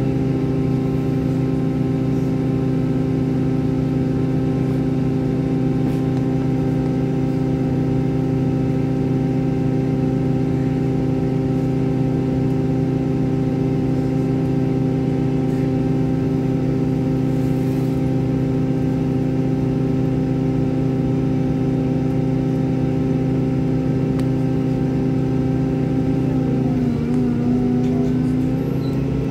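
Bus engine idling steadily, heard from inside the bus while it waits in traffic. Its pitch dips briefly near the end.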